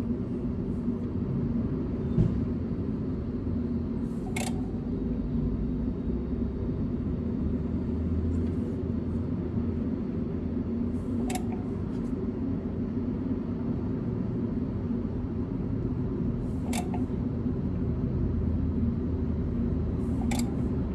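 A steady low rumble and hum, with a few faint, brief clicks scattered through it.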